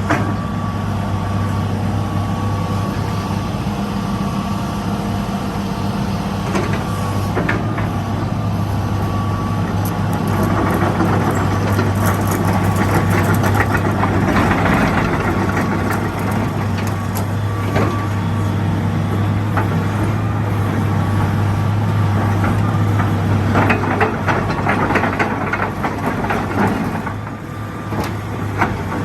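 Hitachi EX225USR hydraulic excavator's diesel engine running with a steady low hum and a thin high whine. It grows louder and harsher in two stretches, with scattered clanks and knocks.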